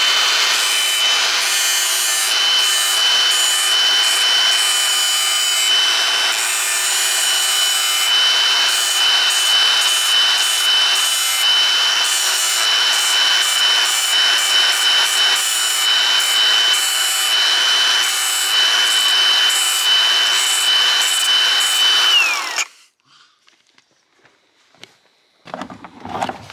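Power tool cutting a notch into an extended wheel arch, its motor whining steadily under a rasping cutting noise that comes and goes as the blade bites. About 22 seconds in the motor is switched off and its whine falls away to a stop, leaving a few faint knocks of handling.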